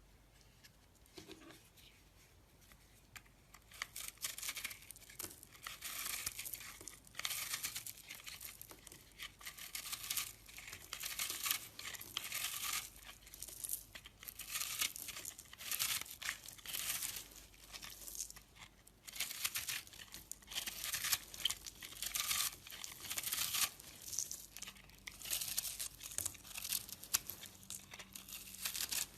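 Bar of soap being carved with a blade: repeated scraping, cutting strokes one after another, starting a few seconds in.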